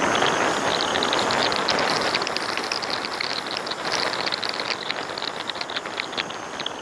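A vehicle on the move: steady road and wind noise with fast, irregular ticking over it, easing off a little toward the end.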